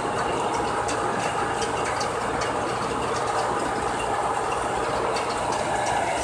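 Wirtgen cold milling machine (road planer) running and milling off asphalt: a steady, dense mechanical noise with a low hum and scattered small clicks.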